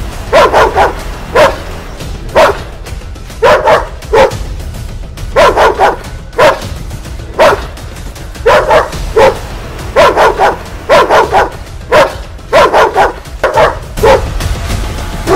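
German Shepherd dog barking again and again, the barks often coming in quick runs of two or three.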